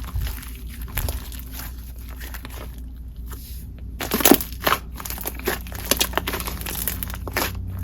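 Hands pressing and stretching a soft clay-mixed jelly-cream slime with bingsu beads, making irregular sizzly crackles, small pops and crunches, with a denser cluster of pops about halfway through.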